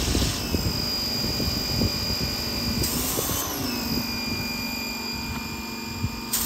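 1400 PSI pressure washer running and spraying, its motor and pump giving a steady hum and high whine over the hiss of the water jet; the pitch sags briefly a little over three seconds in.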